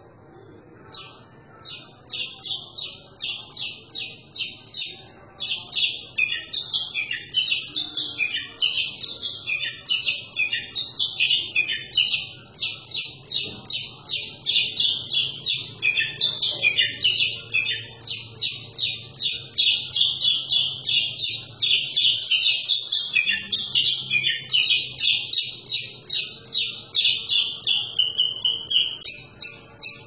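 Javan bush lark (branjangan) in full song, a fast, varied stream of sharp repeated chirps and trills that pours on without a break. This is the busy, mimicry-filled song that keepers call gacor.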